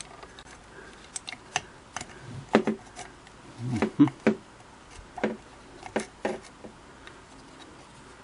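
Irregular small clicks and light knocks of hands working wiring against the metal parts inside a Singer 221 Featherweight sewing machine's underside, as the wire is pulled back up and rerouted above the gear set. The knocks are busiest in the middle.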